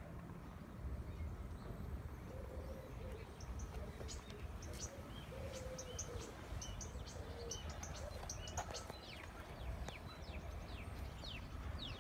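Small birds chirping in quick high notes and short downward sweeps, growing busier from about three seconds in, with a few lower held notes in between, over a steady low background rumble.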